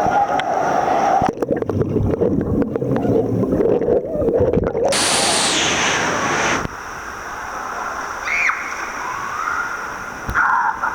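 Pool water heard through a camera dunked underwater: muffled sloshing and gurgling, then a loud rush of water for about a second and a half about five seconds in. After that, a quieter steady wash of pool noise with a couple of brief high-pitched calls near the end.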